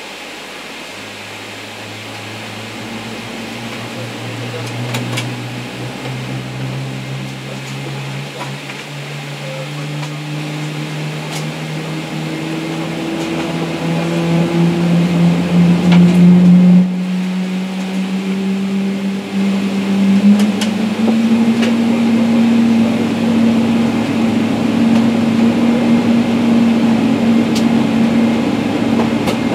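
A General Electric GE90 turbofan on a Boeing 777-300ER starting, heard from inside the cabin: a low hum climbs slowly in pitch and grows louder as the engine spools up, dips briefly just past halfway, then settles into a steady whine at idle.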